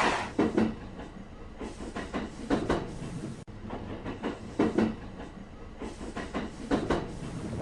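Train wheels clacking over rail joints as the cars roll by: short knocks, mostly in close pairs, about every two seconds.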